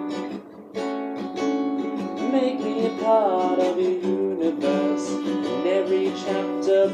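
Music: strummed acoustic guitar chords, breaking off briefly about half a second in, with a gliding melody line joining about two seconds in.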